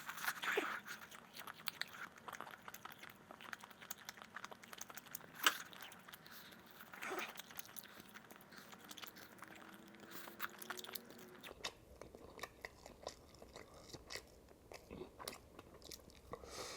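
A person chewing and biting chicken drumstick meat close to the microphone: irregular small mouth clicks and smacks, with a few louder bites.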